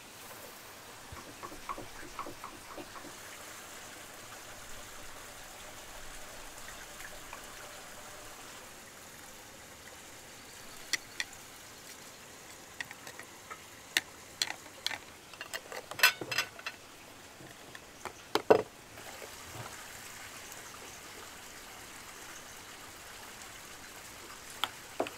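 Glass jars and their lids clinking and knocking as they are handled, with a few sharp, ringing clinks in the middle and a knock just after, over a steady faint hiss.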